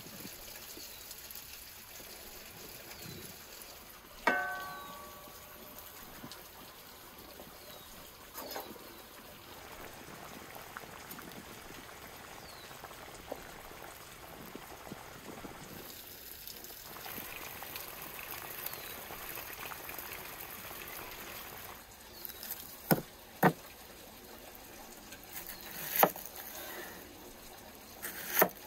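Cooking sounds. About four seconds in there is a single metal clank that rings on for a second or so. Then comes a soft wet splashing and dripping of broth as boiled meat is lifted from a metal cauldron, and near the end four or five sharp cleaver chops on a wooden board as a red onion is cut.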